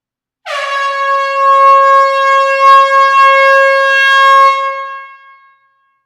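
Air horn giving one long, steady blast of about five seconds on a single pitch, starting abruptly and fading out at the end.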